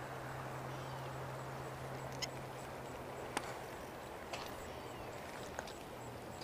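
Steady rush of river water under a low steady hum, with four sharp clicks about a second apart.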